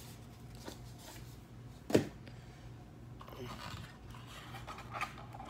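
Quiet handling of a cardboard trading-card box: a single sharp tap about two seconds in, then soft rubbing and scraping as hands work at the box, over a faint steady low hum.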